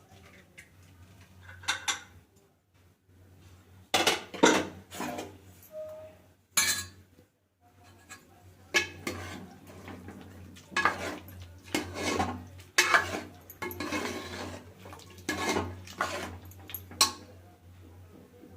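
Metal utensils and dishes clinking and scraping: a spoon knocking against a pan and plates in irregular, ringing clinks, over a faint steady low hum.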